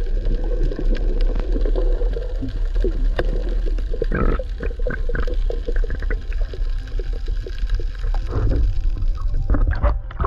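Underwater sound through a camera housing: a heavy, muffled low rumble of moving water with many scattered sharp crackling clicks. Near the end the camera breaks the surface.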